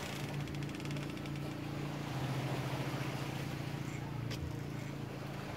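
An engine running steadily, a low even drone. A brief run of rapid fine ticking comes in the first second and a single sharp click about four seconds in.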